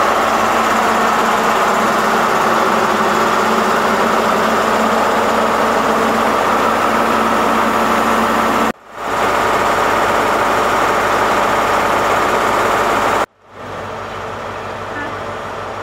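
Class 43 HST power car's diesel engine running steadily while the train stands at the platform: a loud, even drone with a whine on top. It cuts off abruptly twice. Near the end it gives way to a quieter steady rumble of a distant approaching train.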